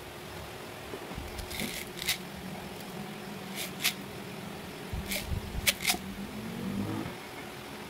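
Hands handling a plastic piping bag and sprinkles: a few short rustles and sharp clicks scattered through, over a steady low hum that rises slightly near the end.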